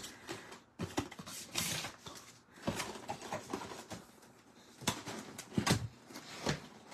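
Cardboard box and clear plastic packaging tray being handled: irregular taps, scuffs and rustles of card and plastic as the box is opened and its contents slid out.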